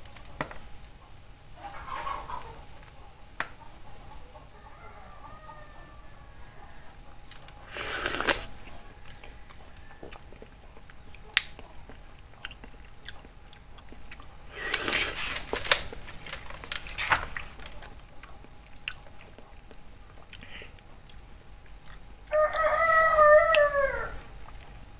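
Wet biting and slurping of soft, ripe mango flesh in a few short bursts. Near the end a rooster crows once, about two seconds long, the loudest sound here.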